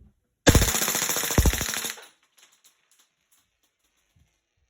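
Crosman PFAM9B CO2 BB pistol firing one full-auto burst of about a second and a half, a fast, loud rattle of shots, followed by a few faint ticks.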